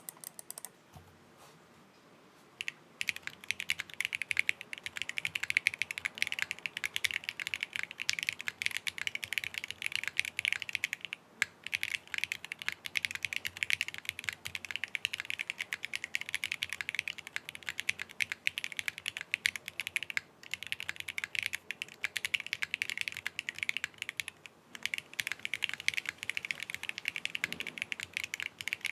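Fast typing on a Qwertykeys QK60 mechanical keyboard with lubed frankenswitches (Strawberry Jelly V2 tops on Gateron Milky Yellow Pro bottoms) in an aluminium plate, with no foam inside. After a nearly quiet start, it becomes a dense, continuous run of keystrokes about three seconds in, broken by a few short pauses.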